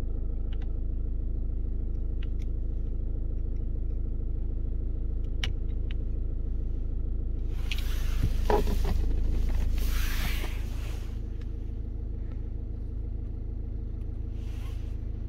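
Car engine idling steadily, a low even hum heard from inside the cabin. About halfway through comes a few seconds of rustling and clatter from handling the OBD adapter.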